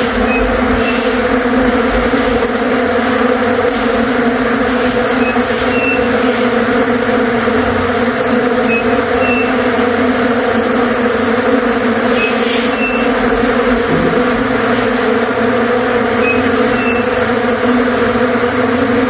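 A swarm of bees buzzing in a steady, dense hum, with a bird giving short high chirps, often in pairs, every few seconds.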